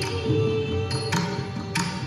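Carnatic music accompaniment for a Mohiniyattam padam in raga Anandabhairavi. A melody note is held for about the first second over a low percussion accompaniment, then sharp percussion strikes come three times in the second half.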